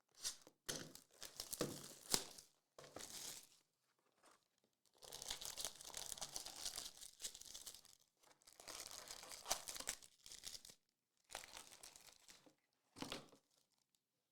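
Trading-card pack wrappers being torn open and crinkled. There are several separate bursts of crackly tearing and rustling with short pauses between them.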